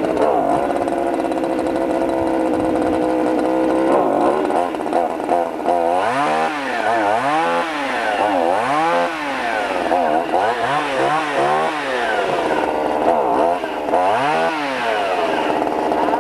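Two-stroke chainsaw running, steady at first, then revved up and down over and over from about four seconds in, easing back to a steady speed near the end.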